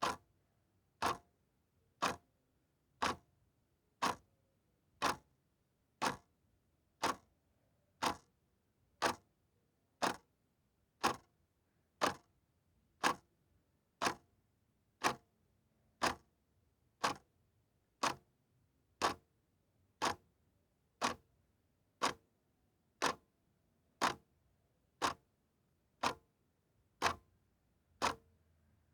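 Mechanical clock ticking steadily, one sharp tick each second.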